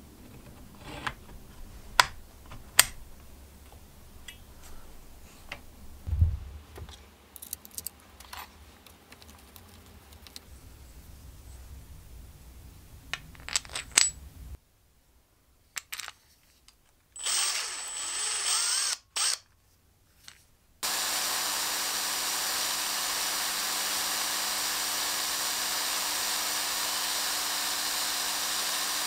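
Sharp clicks and taps of small metal and plastic parts being handled and fitted. About two-thirds in, a vintage Black & Decker D500 corded drill starts and runs steadily with an even hum. Its rotor no longer rubs, because its loose bearing has been packed with copper paste.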